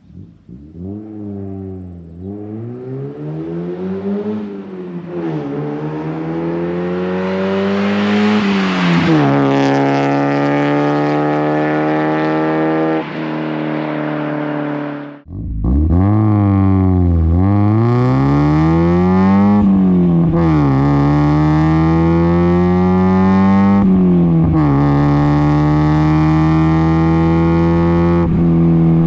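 1992 Mazda Miata's 1.6-litre four-cylinder through an ISR Performance Circuit Spec exhaust with a test pipe, accelerating through the gears: the exhaust note climbs and drops several times, then holds a steady drone. It cuts off briefly about halfway through, then a second run climbs and drops again before settling into a steady drone.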